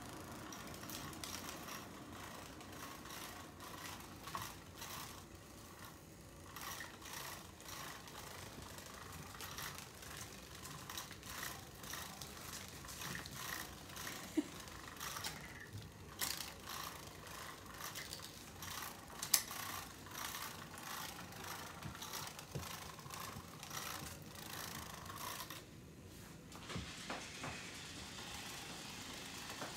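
Irregular clicking and rattling of a plastic cat toy and small paws on a tile floor as kittens and a puppy bat at it and tussle, with a couple of sharper knocks.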